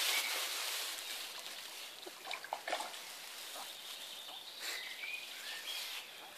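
Waterside outdoor ambience: a steady hiss, a few short high bird chirps, and a cluster of small splashes and pops about halfway through, from fish taking floating dog biscuits at the surface.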